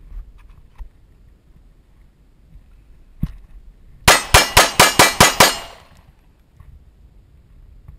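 Springfield XD-S 9mm pistol firing Federal 115 grain full metal jacket rounds: one lone crack about three seconds in, then a rapid string of about eight shots in under two seconds.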